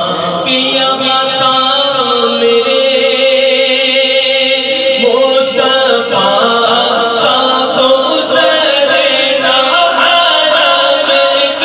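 A man singing a naat, a devotional hymn in praise of the Prophet, into a microphone. His voice holds long, wavering notes.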